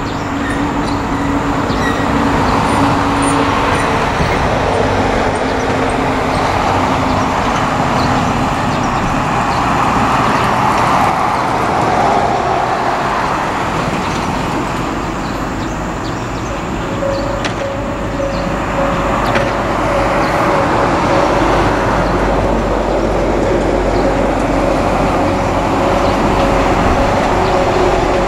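Moka Railway Moka-14 diesel railcar approaching along the track, its engine running as a steady noise; a held steady tone joins a little past the middle.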